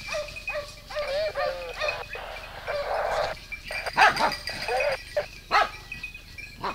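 Boar-hunting dogs barking and yelping repeatedly, with a rustle of brush for about a second around the middle.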